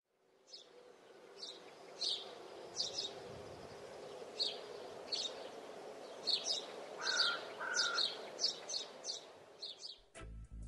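Birds chirping: short high chirps repeating every half second to a second, with two lower whistled notes about seven seconds in, over a steady background hum; it fades in at the start. Music begins near the end.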